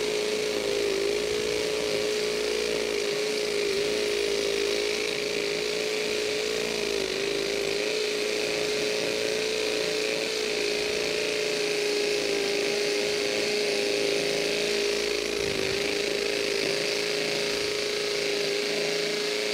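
Makita compact cordless hammer drill running in hammer mode on speed 2, its masonry bit boring steadily into a concrete block. The tone holds even, sagging slightly in pitch a few times as the bit bites.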